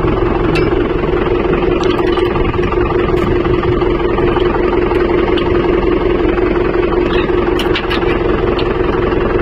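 Mahindra 575 DI 45 hp diesel tractor running steadily under load, driving a rotavator through the soil, with an even, unbroken hum.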